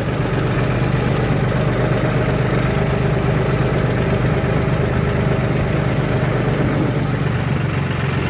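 John Deere tractor's three-cylinder diesel engine running steadily, heard close up from the tractor's own seat as it drives along.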